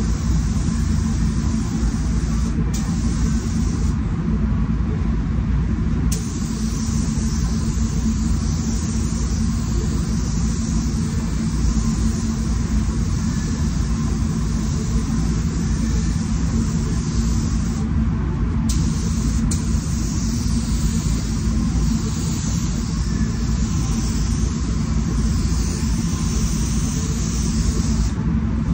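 Paint booth air handling running with a steady rumble, under the hiss of a spray gun laying a low-pressure drop coat of basecoat at about 10 psi. The hiss cuts out briefly three or four times as the trigger is let go between passes.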